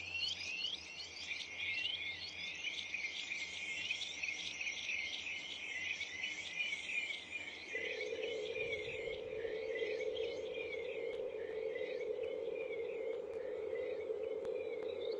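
Many small garden birds chirping and calling over one another in quick, overlapping notes. About halfway through, a steady low hum starts and carries on under the birdsong.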